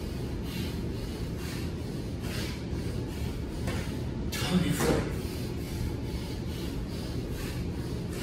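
Hard, rhythmic breathing of a man doing nonstop burpees, over a steady low hum. About halfway through comes one louder burst as he drops into or lands a rep.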